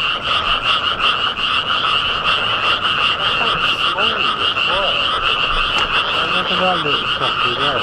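A dense chorus of thousands of frogs croaking together, a fast, even pulsing that runs on without a break.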